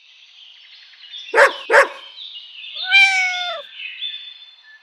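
Logo sting sound effect: two quick dog barks about a second and a half in, then one cat meow that falls in pitch at its end, over a high shimmering sound.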